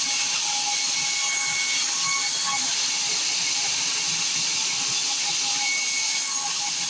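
Sawmill saw cutting through a large acacia log: a steady high hiss, with a faint whine that comes and goes.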